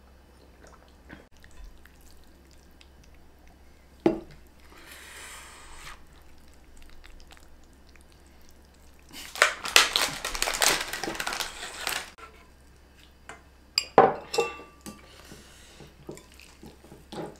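Tableware sounds of a meal: chopsticks and utensils clinking and knocking against ceramic bowls and a pan as food is served. A sharp knock comes about four seconds in and a few more near the end, with a louder, scratchy stretch of a few seconds in the middle.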